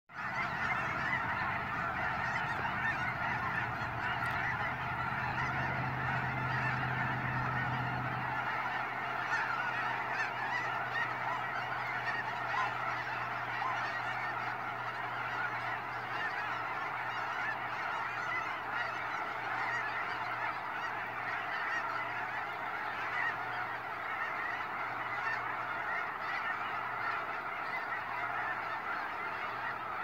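A huge flock of snow geese calling all at once: a dense, unbroken chorus of overlapping high honks that keeps on steadily.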